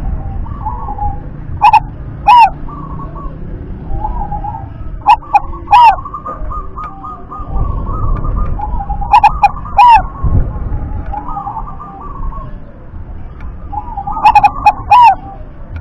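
Zebra dove (perkutut) singing: four short phrases of quick staccato coos, a few seconds apart, so loud they clip. Fainter chirping fills the gaps between phrases.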